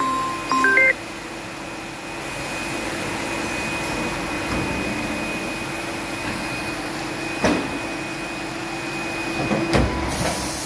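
Polar 137 XT Autotrim guillotine paper cutter running with a steady mechanical hum and whine. There is a sharp knock about seven seconds in and another near the end, followed by a burst of hissing air.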